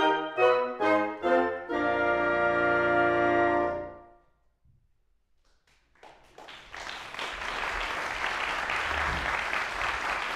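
Wind ensemble with French horns plays a quick string of chords into a held final chord, released about four seconds in. After a short silence the audience breaks into applause.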